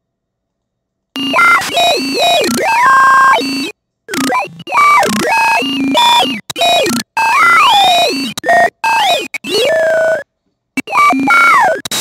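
Harsh, distorted electronic synthesizer noise, silent at first and starting abruptly about a second in: warbling tones slide up and down over a noisy hiss. It cuts out suddenly several times and then comes back.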